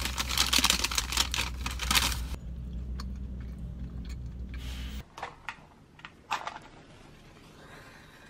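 Paper bag crinkling and rustling for about two seconds as it is opened and handled, over the low hum inside a car. About five seconds in the hum stops and a few light clicks and taps follow in a quiet room.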